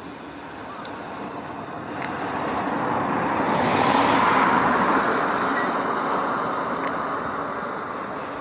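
A road vehicle driving past: a steady rush of tyre and engine noise that builds to its loudest about four seconds in, then fades away.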